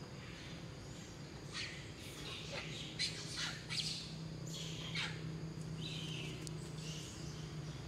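Short, sharp, high-pitched animal calls, about eight of them between a second and a half and five seconds in, several sliding steeply down in pitch, then a softer call near six seconds, over a steady low hum.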